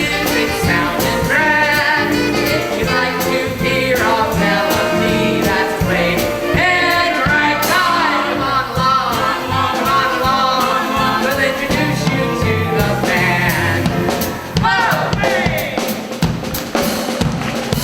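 A song sung with instrumental accompaniment and a drum kit keeping the beat.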